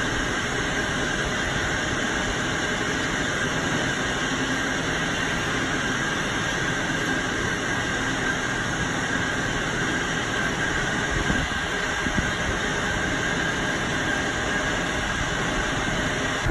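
Steady mechanical hum with a thin, high, steady whine from the RORO ferry's machinery as its wire-hung vehicle ramp is lowered onto the quay. A couple of light knocks come about two-thirds of the way through.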